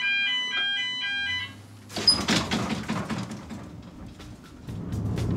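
Inclined lift's warning signal sounding a fast series of alternating beeps as it is started from the cabin's control panel. About two seconds in a loud clunk follows, then rattling and a low hum as the car sets off downhill.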